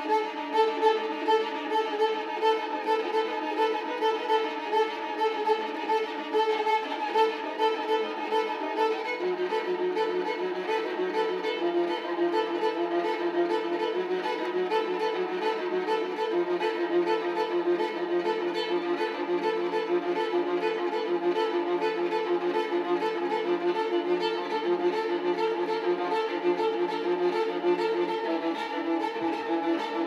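Viola played with a bow, a repeated rhythmic figure pulsing about twice a second. A lower held note joins about nine seconds in, and the playing grows more even.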